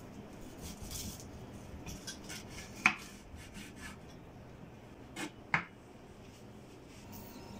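Knife sawing through a press-toasted sandwich with a rasping scrape, the blade knocking sharply on a wooden cutting board about three seconds in and twice more a little after five seconds.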